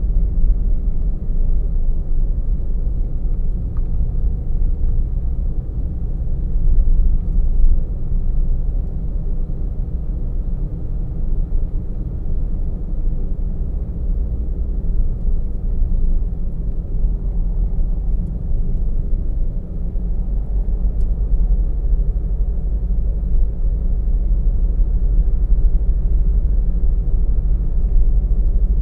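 Car driving steadily along a road, recorded from inside the car: a continuous low rumble of road and engine noise.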